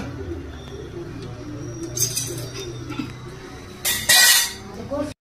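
Metal clinks of a pressure cooker's lid being fitted and locked, over background music. A loud, brief burst of noise comes about four seconds in.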